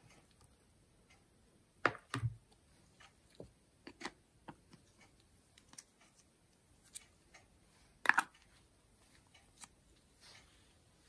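Plastic parts of a cake-decorating syringe clicking and tapping as it is handled and its nozzle cap is screwed on, with scattered small clicks and a few louder knocks about two seconds in and again around eight seconds.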